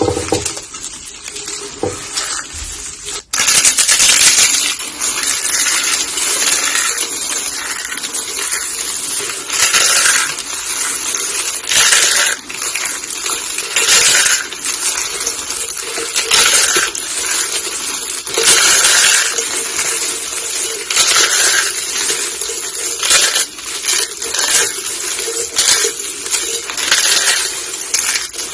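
Pink soap roses and soap curls being crushed, a dense, crisp crunching and crackling that swells in repeated louder squeezes every second or two. About three seconds in the sound cuts abruptly to a new, brighter stretch of crunching.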